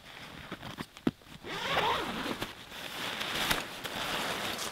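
A nylon tent carry bag being unzipped, the zipper drawn along its length in a long rasping run after a single sharp click about a second in.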